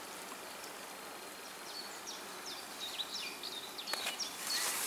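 A small songbird chirping repeatedly in short, quick downward notes from about two seconds in, over a faint steady background hiss, with a couple of faint clicks near the end.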